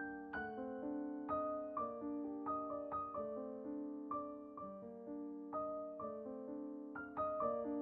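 Gentle background piano music: single notes struck at an unhurried pace over held chords, each note fading away.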